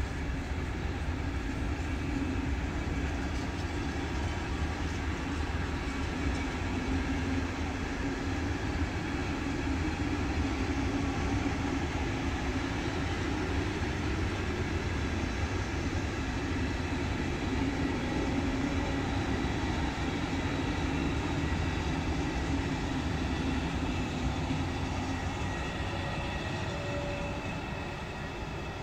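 A train running past: a long, steady rumble with a few steady whining tones above it, dying down a little near the end.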